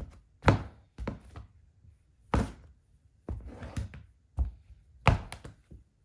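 Nude stiletto heel sandals stomping Play-Doh on a wooden floor: about a dozen uneven thuds and heel taps. The heaviest come about half a second in, midway, and about five seconds in.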